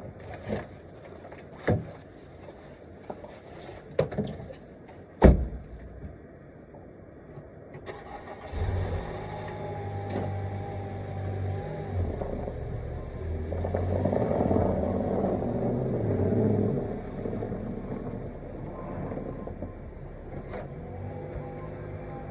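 Several knocks and a loud door-like slam about five seconds in, then a car engine starts and runs, getting louder for a few seconds in the middle as it is driven, before settling back to a steady run.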